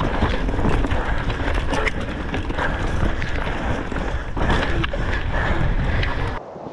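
Deviate high-pivot mountain bike ridden fast over rocky, rooty trail: dense rumble of knobby downhill tyres on stone with repeated clattering knocks from the chain and suspension, and wind buffeting the microphone. The sound cuts off abruptly near the end.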